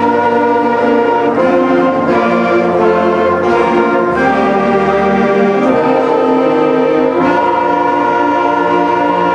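Junior concert band of woodwinds and brass playing a slow chorale: held chords entering together all at once and moving to a new chord every second or two.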